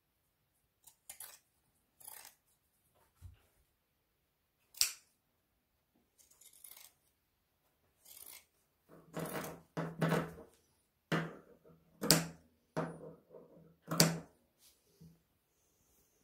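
Fabric scissors cutting along the edge of a cotton seam allowance, trimming it down to reduce bulk. Scattered single snips come first, then a quicker run of cuts in the second half.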